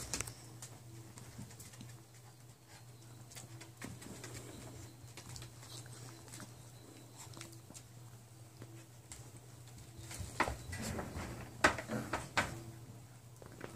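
Nine-week-old puppies moving about on blankets in a wire crate, with scattered faint clicks and a few louder short, sharp sounds clustered about ten to twelve seconds in, over a steady low hum.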